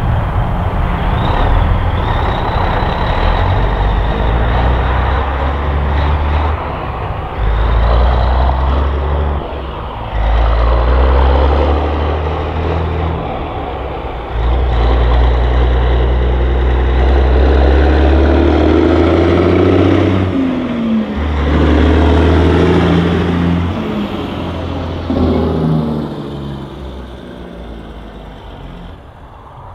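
Diesel semi truck engine pulling through the gears. The note holds, dips briefly at each shift and picks up again, four or five times. Over the last few seconds it fades as the truck moves away.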